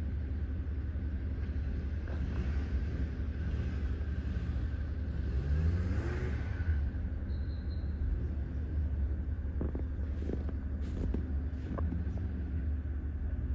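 A steady low rumble, with a faint rising whine about halfway through and a few light clicks near the end.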